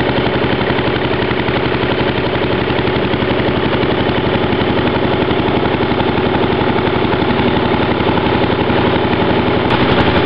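Delco-Light 750 lighting plant's single-cylinder engine running at a steady, even beat through a homemade muffler made from a Mack truck oil filter, which quietens its exhaust a great deal.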